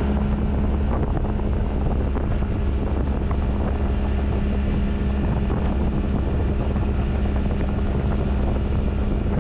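Boat's outboard motor running steadily under way, with heavy wind rumble on the microphone.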